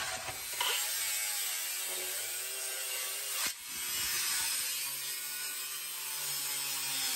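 Cordless cut-off tool's abrasive disc cutting through a sheet-steel repair panel: a steady grinding hiss over the motor's whine, which sags in pitch as the disc bites and picks up again. There is a brief break about halfway through, and then it cuts on.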